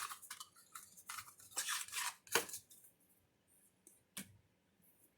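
Small clicks and short rustles from a skincare cream's packaging being handled and worked open by hand, busy at first, then just a few clicks.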